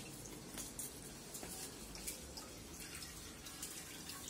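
Faint water trickling and dripping from a kitchen tap, with a few light ticks.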